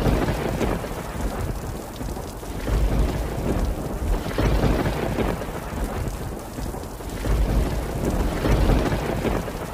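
Rain falling with rolling thunder: a steady hiss of rain over a deep rumble that swells and fades several times.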